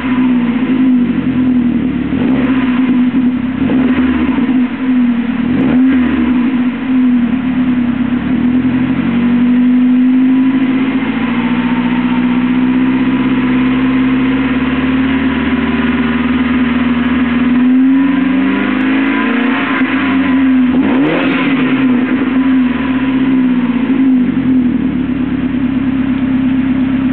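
Saab 9-3 Viggen's turbocharged 2.3-litre four-cylinder running through an exhaust with the mid muffler deleted (stock rear muffler, piping and 3-inch downpipe), still warming up from a cold start. Several quick rev blips early on, a slower climb and fall in the middle, two more revs about twenty seconds in, then settling to a steady idle.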